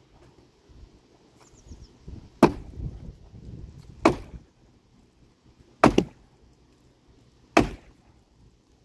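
Four heavy sledgehammer blows on a dead, dry tree trunk, knocking it apart for firewood. The blows are sharp and loud and come every one and a half to two seconds.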